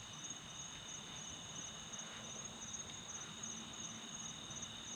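Night insects, crickets, trilling in a steady chorus, with a higher chirp pulsing rapidly and evenly over it.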